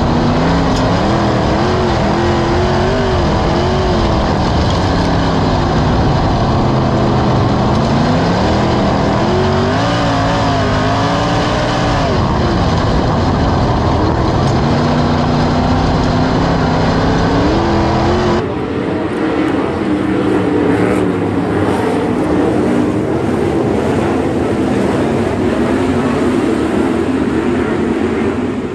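360 sprint car's V8 engine at racing speed, heard onboard, its pitch rising and falling over and over as the throttle is opened and lifted around the oval. About two-thirds of the way through, the sound switches abruptly to a trackside recording: a field of sprint cars running around the track, heard from a distance.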